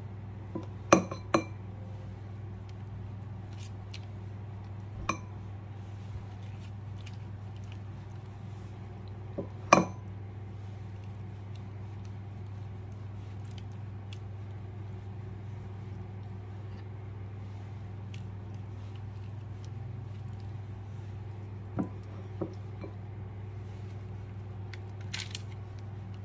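Kitchen utensils clinking and knocking against a metal baking tray and dishes, a handful of sharp clinks spread out with the loudest about a second in and about ten seconds in, over a steady low hum.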